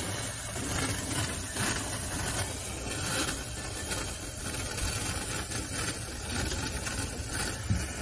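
Refrigerant gas hissing steadily out of a cut copper line in a refrigerator's sealed system. The strong flow shows the line is open on this side, with the blockage lying in the capillary tube.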